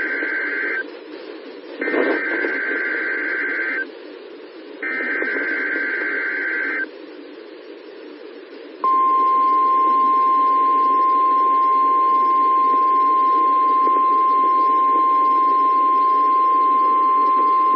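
NOAA Weather Radio weekly test tones heard over a radio receiver with steady hiss. The end of one warbling SAME digital header burst is followed by two more of about two seconds each, then a steady single-pitch 1050 Hz warning alarm tone that lasts about nine seconds and cuts off. This is the required weekly test of the alert system that switches on weather-radio receivers.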